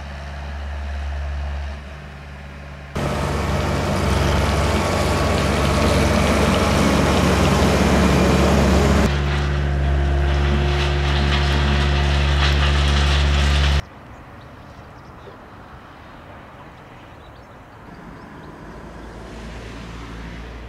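Diesel engine of a rail-mounted excavator running steadily. About three seconds in it grows much louder, with a harsh rushing noise over it, then settles back to a steady drone. It cuts off sharply a little past the middle, leaving faint outdoor background.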